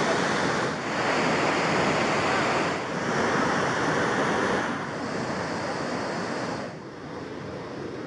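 Bogatha waterfall in spate, swollen by heavy rains, its brown water pouring over a broad rock ledge in a steady rush of noise. The level shifts a few times and falls off somewhat near the end.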